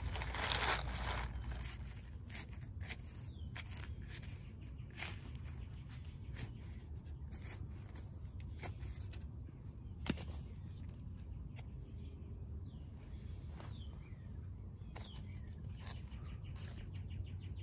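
Soft scraping and rustling of potting soil and dry leaves worked by gloved hands and a hand trowel in plastic nursery pots, with scattered light clicks and knocks, one sharper click about halfway through.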